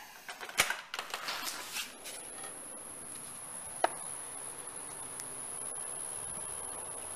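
Window blinds clicking and rattling as they are handled, then, about two seconds in, a steady high-pitched insect buzz sets in and holds, with one sharp tick partway through.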